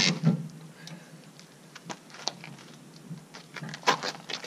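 Sharp metal clicks and clanks at irregular spacing from a long-handled wrench working the large nut on a weight-distributing hitch head as it is tightened, with the loudest click at the very start.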